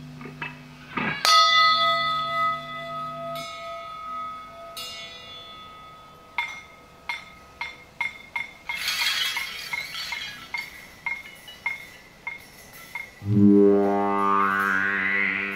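Experimental music from sound installations and electric guitar: a low held drone that stops a few seconds in, a bell-like struck tone ringing out about a second in, irregular clicks and clinks throughout, and near the end a loud low chord with a rising sweep of overtones.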